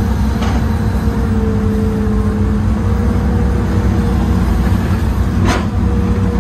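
Old Hitachi excavator's diesel engine and hydraulics running steadily under the operator, heard from inside the cab: a constant heavy hum with a whine that drifts slightly in pitch. A short sharp click about half a second in, and a clearer one near the end.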